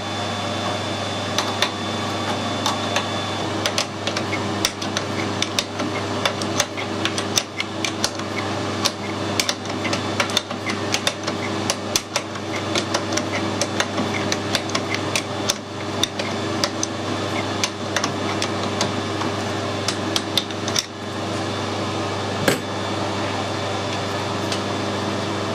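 Irregular sharp metallic clicks and taps, several a second, from hand-cutting an external thread with a die in a lathe tailstock die holder, over a steady low hum.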